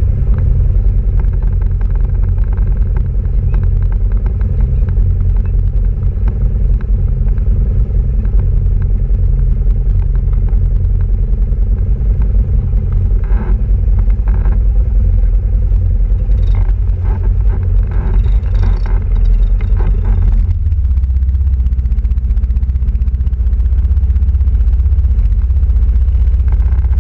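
Quad bike (ATV) engine running close by, a loud steady low rumble. About 20 seconds in, the sound changes to a smoother, steadier low drone.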